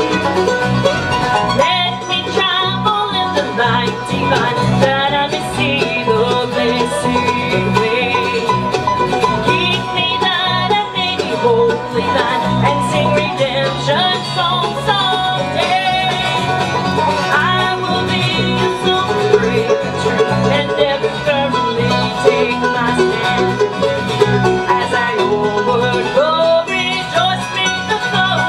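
A live acoustic bluegrass band playing a gospel number: banjo rolls, strummed acoustic guitar and mandolin over upright bass.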